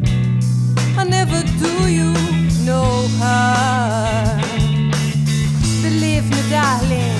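A band playing a slow rock-soul groove: electric bass holding long low notes that change about once a second, with drums, electric guitar and keyboard, and a wavering melody line over the top.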